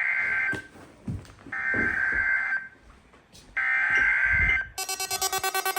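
NOAA Weather Radio SAME header: three one-second bursts of buzzy digital data tones, about a second apart, with the first already under way, sending the coded Required Weekly Test message. Near the end an electronic alert tone starts, pulsing rapidly.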